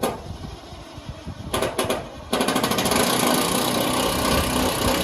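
Power drill-driver driving a screw into a metal roofing panel. It gives a few short bursts, then about three seconds of rapid, steady rattling.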